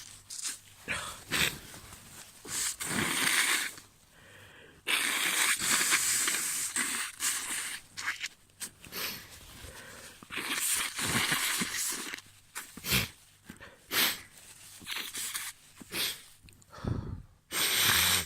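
A person with a runny nose blowing their nose several times, long wet blows of a second or two, with short sniffles in between.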